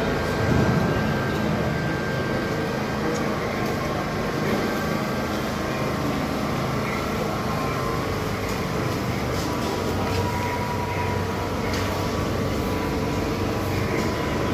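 New York City Subway train standing at the platform with its doors open, a steady hum and faint whine from its equipment.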